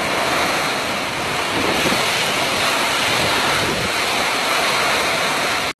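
Heavy rain pouring down in a strong windstorm, wind thrashing palm trees and buffeting the microphone in a steady, loud rush of noise that cuts off suddenly near the end.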